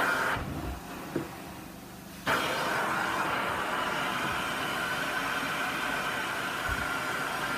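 Carpet extraction cleaner's wand: a short rush of spray and suction as a stroke ends, then, about two seconds in, a steady loud rushing suction that holds.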